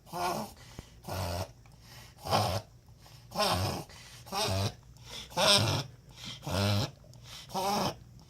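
A dog making a weird noise over and over, eight short noisy bursts about a second apart. It is a recurring episode that the owner wonders may be a cough or choking, and that others have told him is a reverse sneeze.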